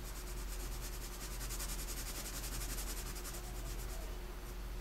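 2B graphite pencil shading on paper: rapid back-and-forth scratching strokes that ease off about four seconds in, over a steady low electrical hum.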